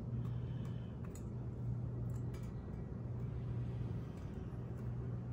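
A steady low hum, with a few faint light clicks and taps as berries are tipped from a metal measuring cup into a glass trifle bowl.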